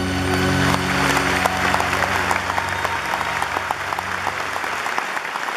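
Theatre audience applauding at the end of a song, the clapping swelling about a second in while the band and orchestra's last held chord rings out and fades.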